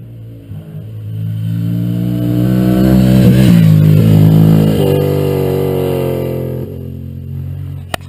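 Motorcycle engine approaching and passing close by, rising to a peak a few seconds in, its pitch dropping as it goes past, then fading away. A sharp click near the end.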